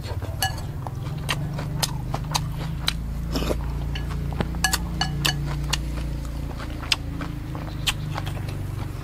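Close-up mouth sounds of chewing a mouthful of rice and fish paste dip: wet lip smacks and sharp clicks every half second or so, over a steady low hum.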